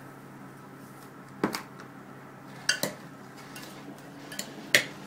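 A glass salad bowl clinking several times as chopped vegetable salad is tossed by hand in it: sharp separate clinks, the loudest near the end.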